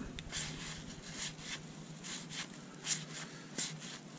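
1981 Fleer cardboard baseball cards sliding against one another as they are thumbed from stack to stack by hand: a run of soft, papery swishes at irregular intervals.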